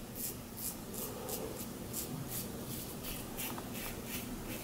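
Safety razor scraping through lathered stubble in quick short strokes, about three or four a second: the razor 'singing' as it cuts the beard hair.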